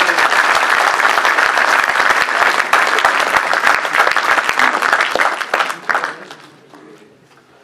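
Audience applauding: dense clapping that dies away about six seconds in.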